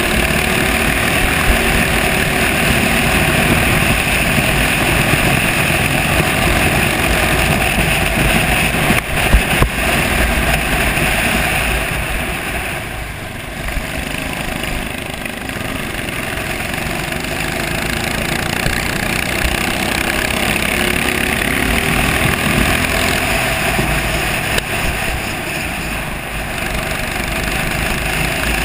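Racing kart engine running hard, heard from on board the kart. The engine sound drops back briefly about halfway through and again near the end as the kart slows for corners, then builds again; a short sharp knock stands out a little after the first quarter.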